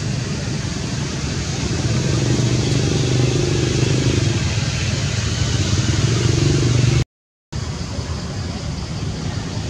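Steady low hum under a broad hiss, cutting out completely for about half a second around seven seconds in.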